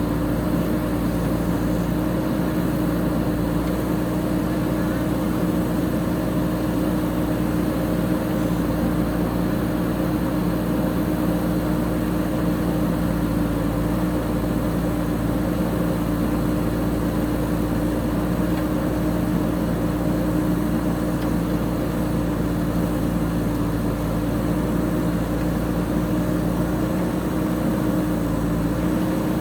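JCB 3DX backhoe loader's diesel engine running at a steady speed, an even hum that holds its pitch.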